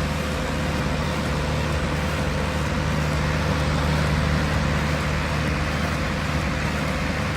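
Almonard 12-inch (300 mm) die-cast aluminium exhaust fan with a shaded-pole motor running steadily: a whoosh of moving air over a low motor hum.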